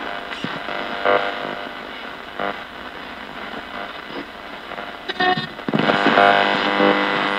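Ghost box: a portable radio sweeping through the AM band, giving continuous static broken by snatches of broadcast sound. It gets louder a little over two-thirds of the way in.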